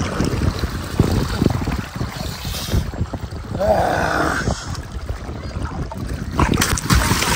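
Water sloshing and splashing close to a phone's microphone held at the surface of a river, with wind buffeting the mic in an uneven low rumble.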